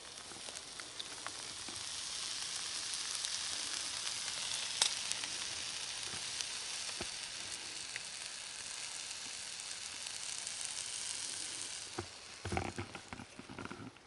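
Steak sizzling in a hot pan. The sizzle swells over the first couple of seconds and then holds steady, followed near the end by a few knocks.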